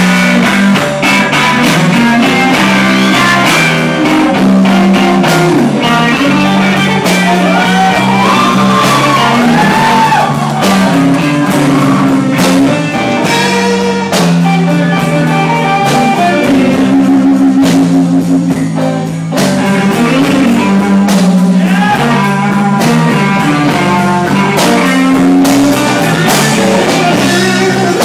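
Live band playing a slow blues: an electric guitar lead with bent notes over bass and drums.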